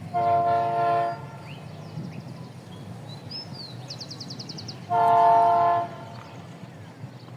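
Diesel freight locomotive's multi-note air horn sounding two blasts of about a second each, some four seconds apart, over the steady low rumble of the locomotives' diesel engines.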